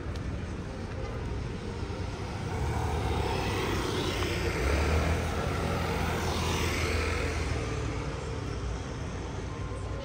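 A vehicle passing by, its engine noise swelling to its loudest about five seconds in and then fading away.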